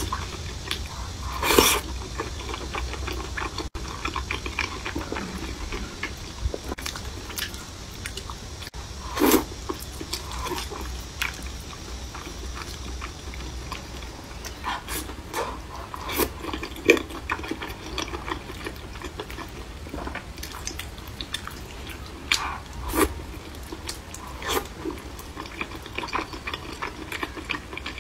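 Close-miked eating: wide, chili-oil-coated flat noodles bitten and chewed, with irregular mouth clicks and smacks every second or so.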